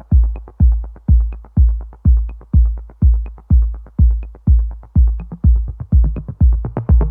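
Electronic background music stripped down to a deep drum-machine kick beating evenly about twice a second, with faint light ticks over it.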